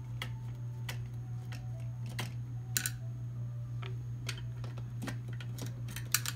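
Irregular small clicks and ticks of a screwdriver working at screws and metal parts of a dental scanner's chassis, two of them sharper, about a third of the way in and near the end. A steady low hum runs underneath.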